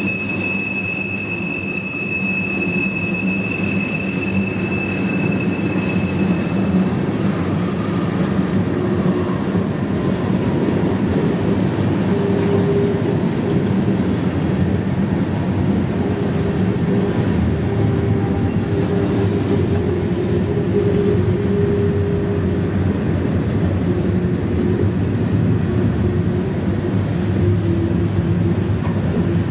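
Freight train of tank cars and covered hoppers rolling past, with a steady rumble of wheels on the rails. A high, steady wheel squeal rides over it for the first several seconds and then fades out, with fainter, lower squeal tones coming and going later.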